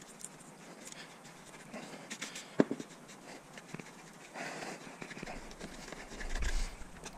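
Knife blade scraping and cutting through the sealant along the seam of an aluminium DC/DC converter housing, with scattered light clicks and one sharp knock about two and a half seconds in.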